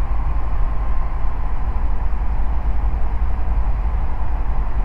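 Ikarus C42B microlight's engine running at low power while taxiing, a steady low rumble.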